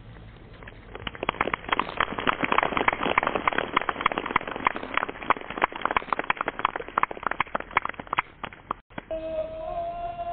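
A rapid, irregular clatter of sharp clicks or claps that starts about a second in and stops abruptly near the end. After a cut it gives way to music, a sustained tune of flute-like tones.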